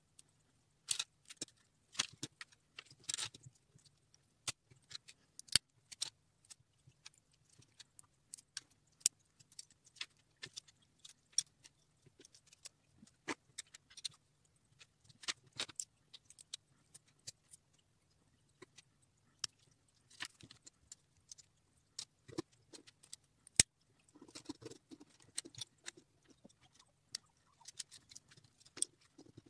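Plastic Lego bricks clicking and clacking as they are sorted from a loose pile and pressed together, in irregular sharp clicks with one louder clack about two-thirds of the way through. A brief softer rustle follows it.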